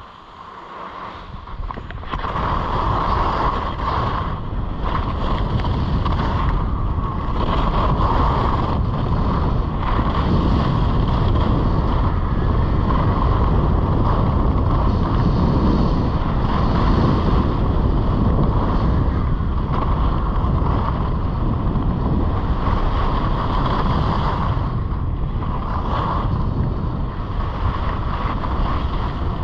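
Wind buffeting an action camera's microphone during a downhill ski run, mixed with skis sliding over the snow. The rush builds over the first two seconds as speed picks up, then holds steady.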